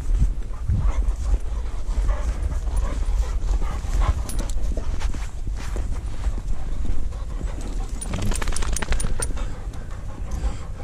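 A dog panting close to the microphone, over a steady low rumble.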